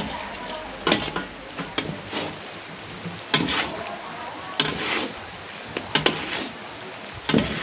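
Perforated metal ladle stirring and scraping goat meat frying in oil in a large metal kadhai, in irregular strokes about once a second, over a steady sizzle.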